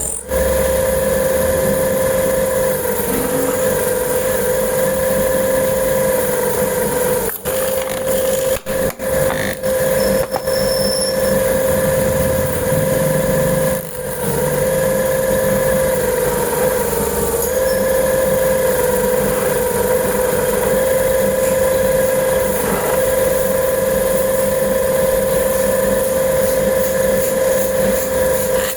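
Bangle-making machine running with a steady, high motor hum, dipping briefly a few times.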